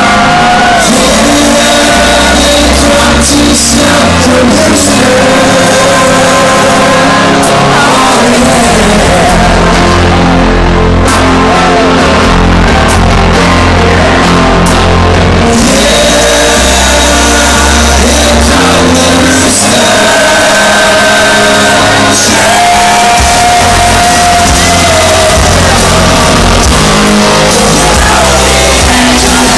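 Rock band playing live and loud: electric guitars, bass and drums, with a lead voice singing over them, heard from among the audience.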